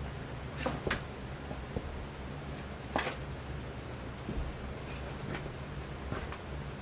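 Casablanca Panama ceiling fan with an XTR 200 motor running with a steady low hum, and a few sharp clicks, the loudest about three seconds in.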